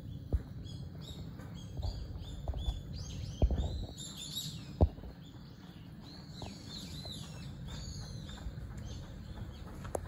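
Small birds chirping in many short, high, overlapping calls, thickest about four to five seconds in and again around seven to eight seconds, over a steady low rumble. A few dull thumps cut in, the loudest about five seconds in.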